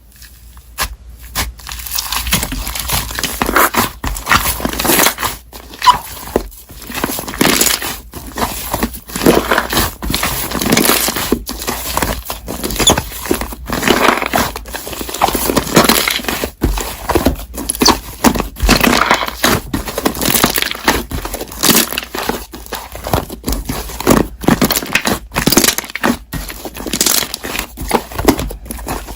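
Slime being squeezed and kneaded by hand: a continuous run of crackling, popping squishes.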